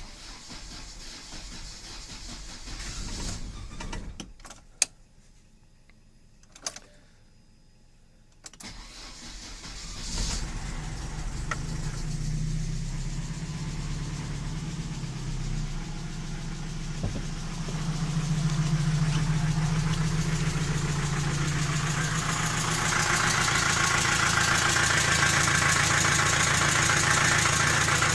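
Two sharp clicks, then a ZMZ-405 gasoline engine is started from cold about nine seconds in and idles steadily, getting louder twice. It carries a knocking and rustling that the owner cannot place, with the hydraulic lifters clattering on the cold start.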